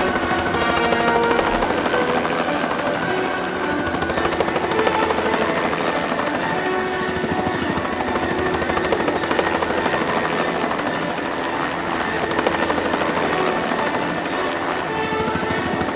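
Helicopter in flight, its rotor blades chopping rapidly and steadily.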